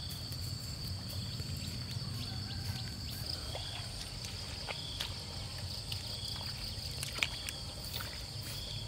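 Insects buzzing steadily in a high, unbroken drone, with a short chirp repeating about every second and a bit, over a low steady rumble and a few sharp clicks.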